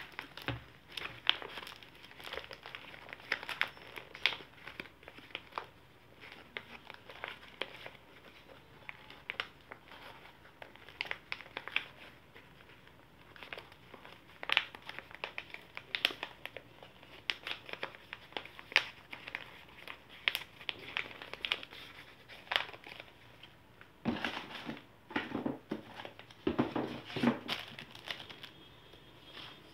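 Crinkling and rustling of packaging pouches handled by hand as they are opened and filled, in irregular sharp crackles, with a denser stretch of rustling near the end as a stack of pouches is shuffled.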